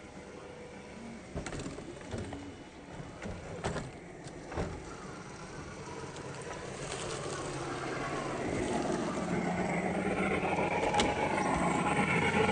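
Radio-controlled scale crawler trucks' electric motors and gears whirring, getting steadily louder over the second half, with a few sharp knocks and clicks in the first few seconds.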